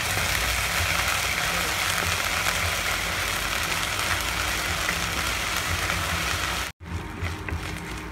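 Chopped onions, green chillies and crushed ginger-garlic sizzling steadily in hot oil in a non-stick kadai on an induction stove while being stirred with a wooden spatula, with a low hum underneath. Near the end the sound cuts out abruptly and comes back quieter.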